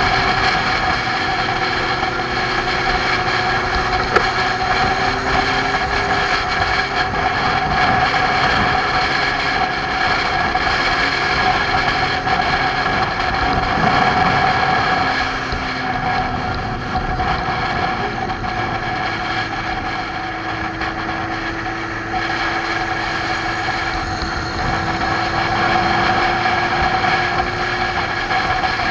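Motorcycle engine running steadily at cruising speed, its pitch drifting slowly up and down, with wind rushing over the bike's windscreen. A faint click sounds about four seconds in.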